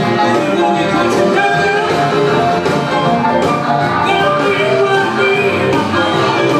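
Live blues band playing, a trumpet and trombone horn section holding notes over keyboard.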